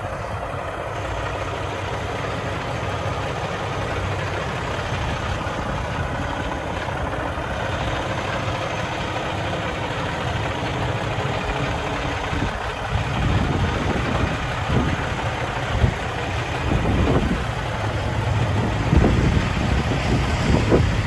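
Kenworth T680 semi truck's diesel engine idling steadily. In the second half, gusts of wind buffet the microphone.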